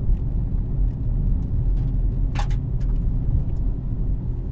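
Car driving, heard from inside the cabin: a steady low road and engine rumble, with a few light clicks and one sharper click about two and a half seconds in.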